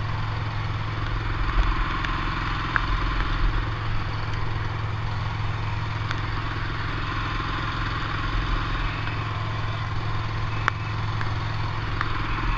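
An engine running steadily at an even speed, with a few faint clicks over it.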